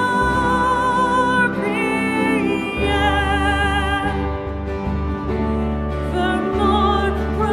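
Music: a solo voice holds long notes with vibrato over a sustained instrumental accompaniment with a steady bass.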